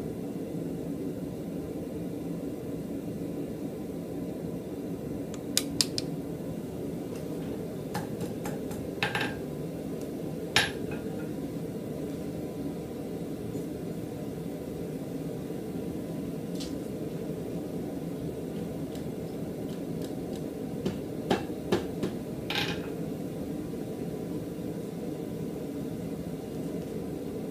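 Steady low hum of the forge's air blower, with scattered light metallic clinks and taps of steel tools: a pair about six seconds in, a few around nine to eleven seconds, and a cluster around twenty-one to twenty-three seconds.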